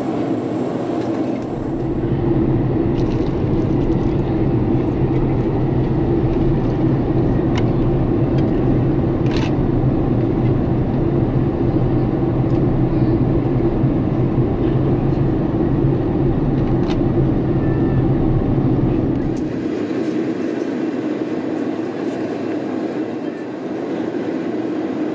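Steady in-flight cabin noise of a Boeing 747-400 on descent: engine and airflow noise with a constant low hum. It grows louder about two seconds in, and the deep rumble falls away near the end.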